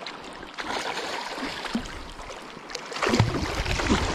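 Shallow water splashing and sloshing as a hooked sea trout thrashes at the surface close in, growing louder about three seconds in.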